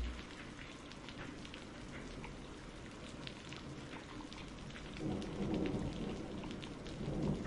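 Steady rain falling, with the patter of individual drops. A low rumble of distant thunder swells about five seconds in.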